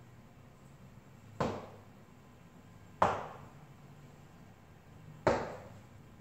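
Three sharp knocks on a hard surface, spaced about one and a half to two seconds apart, each ringing out briefly.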